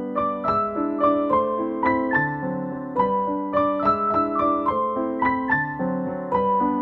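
Background piano music: a gentle melody of single struck notes over lower chords.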